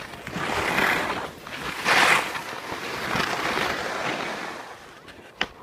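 Wind on the microphone: a rushing noise that swells and fades several times, dies down near the end, and is followed by a sharp click.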